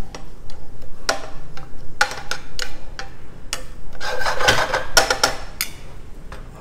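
Metal tongs clicking and scraping against a sauté pan as chard stems are turned in it: many short, irregular clinks, some ringing briefly.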